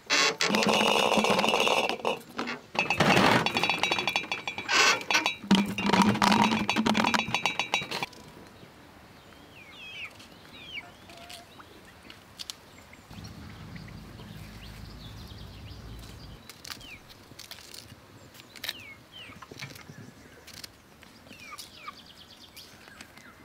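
Domestic geese and ducks honking and quacking loudly for about eight seconds, cutting off abruptly. Then quieter yard sound with short bird chirps now and then.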